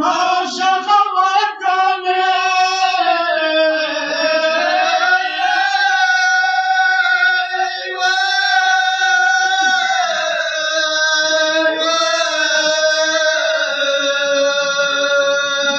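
A man's voice singing a Pashto noha, a Shia mourning lament, in long drawn-out notes that bend slowly in pitch.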